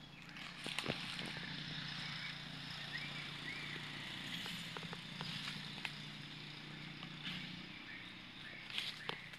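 Scattered sharp crackles of dry leaves and twigs as young monkeys move on vines over leaf litter, over a steady low hum and a faint high hiss. Two short high chirps come about three seconds in.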